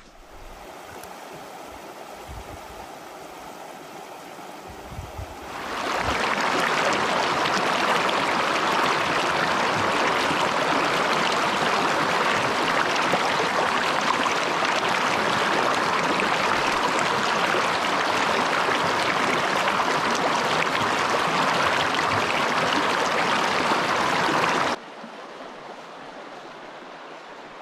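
Rushing mountain stream, moderate at first, then much louder from about six seconds in. It cuts off abruptly near the end to a quieter, steady hiss.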